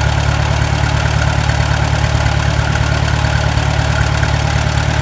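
IH 350 Utility tractor's gasoline engine idling steadily with an even low pulse, with a faint steady high tone over it.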